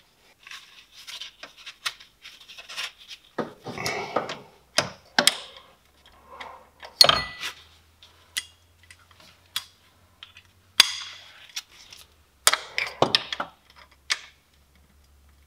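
Hand tools and metal parts clinking and knocking in an engine bay, handled irregularly, with a few sharper metallic strikes about 7 and 11 seconds in.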